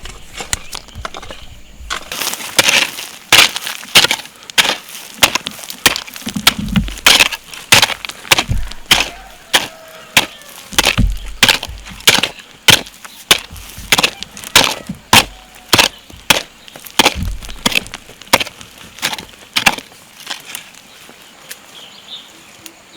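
A long run of sharp, evenly paced blows, about two a second, with a few heavier thuds among them; they stop about twenty seconds in.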